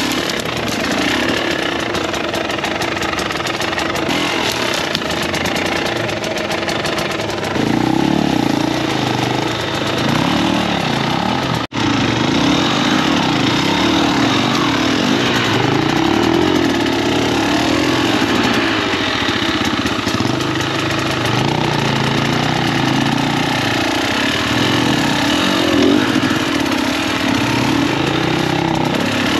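Enduro dirt bike engine running while riding off-road, its pitch rising and falling with the throttle. The sound breaks off for an instant about twelve seconds in.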